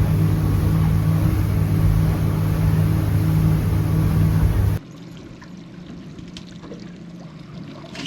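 Boat motor running steadily at speed, its hum mixed with rushing water. It stops abruptly a little under five seconds in, leaving a much quieter stretch with faint water and a few small ticks.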